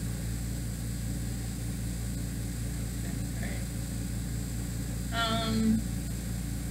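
A steady low hum, with a woman's brief high-pitched squeal about five seconds in.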